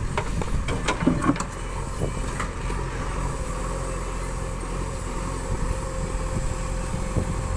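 JCB 3DX backhoe loader's diesel engine running steadily under working load, with a few sharp knocks in the first couple of seconds.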